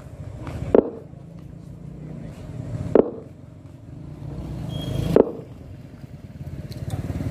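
Polarity test pulses played through a large stacked loudspeaker rig for a phase check: a low rumble swells and ends in a sharp pop, repeating about every two seconds, three times with a fourth at the very end.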